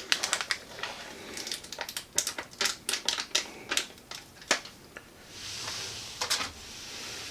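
Plastic dip tub being opened by hand: a quick run of sharp crackling clicks from the lid and seal, then a couple of seconds of softer hissing rustle.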